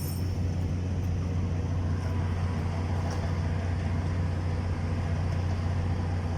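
Steady low drone of machinery running on a pipe welding site, a constant hum with overtones that holds even throughout.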